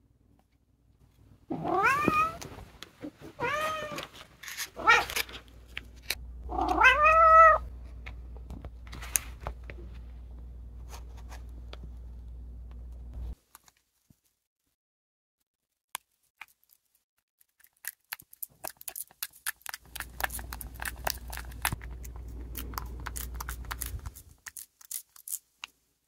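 Orange tabby cat meowing about four times in short rising-and-falling calls for a lickable treat held out to it, the last call the loudest, over a steady low rumble. Later comes a run of quick wet clicks as the cat licks at the treat.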